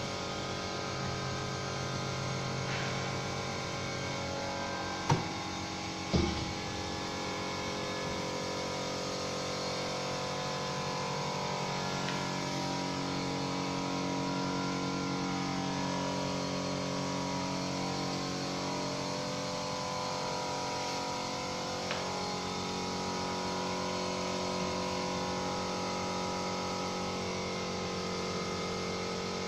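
A pull-out wire pantry basket drawer knocks shut twice, about five and six seconds in, over a steady hum made of several held tones that shift slowly.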